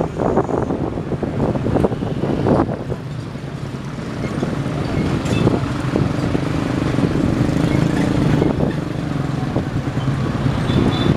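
Diesel multiple-unit train approaching. Its engine drone builds from about halfway through and grows louder, with rough, uneven noise in the first few seconds.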